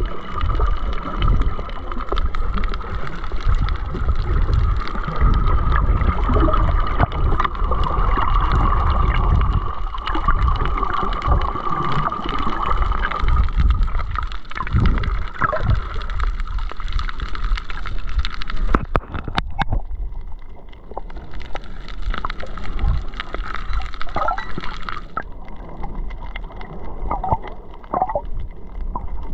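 Underwater water noise on a diving camera: a low rushing and gurgling as it moves through the water, with a steady hum through the first half and a couple of sharp clicks a little past the middle.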